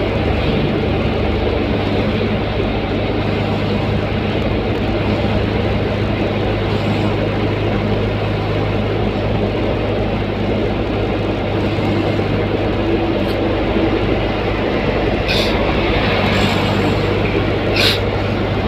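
Steady engine hum and tyre noise heard from inside a vehicle cruising at highway speed, with a few short ticks in the last few seconds.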